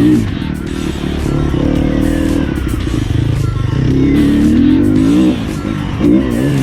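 Sherco 250 SEF four-stroke single-cylinder enduro motorcycle with an Akrapovic exhaust being ridden, its engine note rising and falling with the throttle. It climbs steadily about four seconds in, drops off briefly past five seconds, then revs up sharply near the end.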